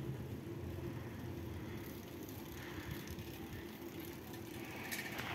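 Steady low hum of distant street traffic, with a child's bicycle passing close by near the end.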